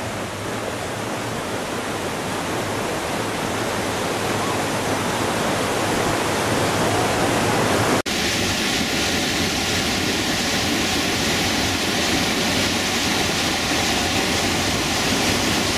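Whitewater of a big river rapid rushing steadily. It breaks off for an instant about halfway through and resumes with more hiss.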